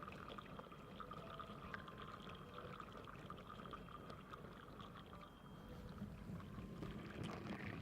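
Faint liquid sounds with many small clicks, an ASMR water trigger.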